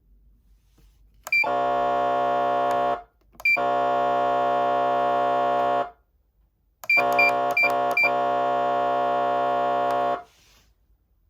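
Federal Signal Smart Siren Platinum SSP2000B siren amplifier sounding a steady electronic horn tone that does not rise or fall, in three blasts of about two to three seconds each. The last blast is tapped on and off a few times quickly before it is held.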